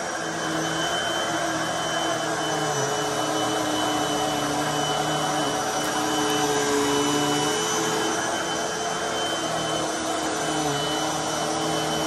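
Hoover WindTunnel High Performance upright vacuum cleaner running while it is pushed back and forth over carpet. The motor and suction make a steady rushing whine whose pitch shifts slightly as the vacuum moves.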